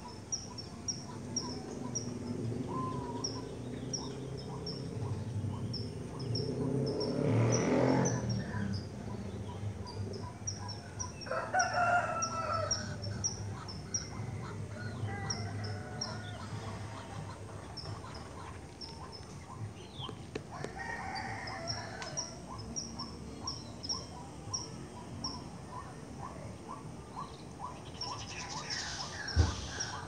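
Bird calls: a short, high note repeated two or three times a second, the call of the bird locally called sri mbombok, with a rooster crowing about eleven seconds in. A brief thump near the end.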